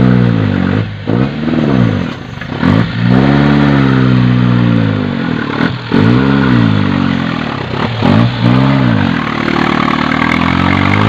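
Modified off-road jeep's engine revved hard in repeated bursts, about six rises and falls in pitch, as the bogged jeep churns through deep mud, with clattering knocks between the revs.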